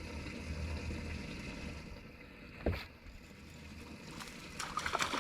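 Steady low rumble of a boat sitting on the water with a little wind, a single knock about two and a half seconds in, and light clicking and rustling near the end.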